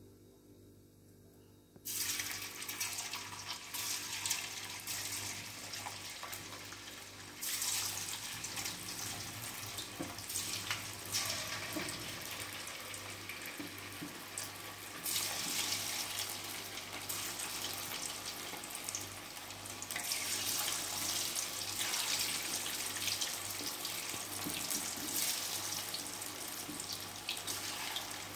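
Marinated cauliflower florets deep-frying in hot oil in an aluminium kadai: a steady hissing sizzle that starts suddenly about two seconds in and swells louder a few times as more florets are dropped in.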